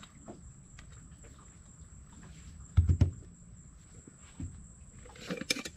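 Hand food-prep handling on a boat's fiberglass hatch: a knife spreading cream cheese on a bagel with light scrapes and taps, then two dull thumps about three seconds in as the tub and bagels are set down and closed up. A quick run of sharp clicks follows near the end.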